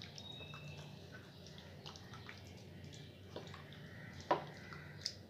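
A bare hand squishing chicken pieces through a thick yogurt marinade in a bowl: faint wet squelches and small clicks, with one louder squelch about four seconds in.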